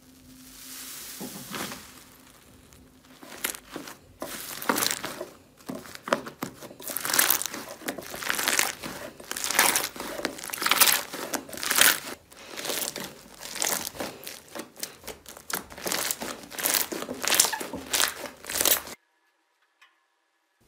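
Hands squeezing and kneading a bowl of thick yellow slime, giving dense runs of short crackles and pops in repeated bursts. The sound stops abruptly a couple of seconds before the end.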